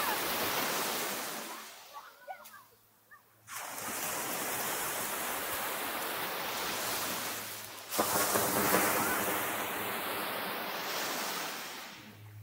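Sea surf on a sandy beach, washing in surges: one fading early, a short lull, a steady wash from about three and a half seconds in, then a louder surge at about eight seconds that fades near the end.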